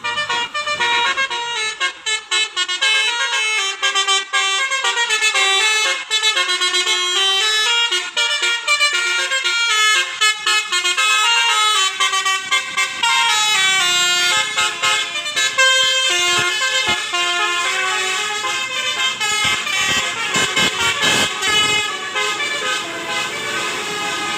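Basuri musical 'telolet' horn on a bus playing a fast melody, its notes stepping up and down without a break.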